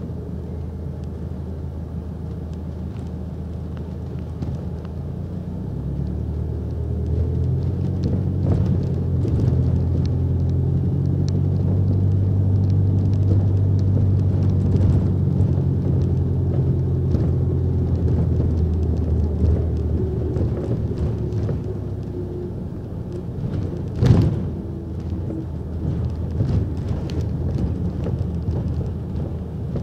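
Bus engine and road noise heard from inside the passenger cabin: a low hum that grows louder as the bus gets under way, holds for a while, then eases off. Scattered clicks and rattles run through it, and one sharp knock comes about three-quarters of the way through.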